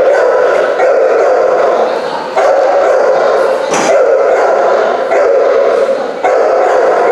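A dog barking and yipping almost without letup, in long runs broken by short pauses.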